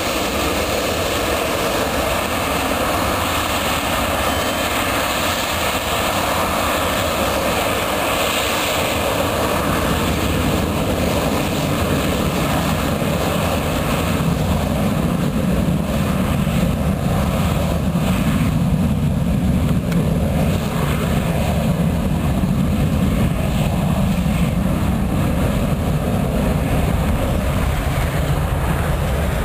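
Boeing 737-200's Pratt & Whitney JT8D turbofan engines spooling up for the takeoff roll. A whine and hiss in the first third gives way, from about halfway in, to a loud, deep, steady rumble as the jet rolls away with its exhaust toward the listener.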